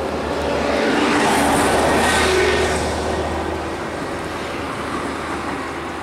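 Road traffic: a vehicle passes close by, growing loudest about two seconds in and then fading into steady traffic noise.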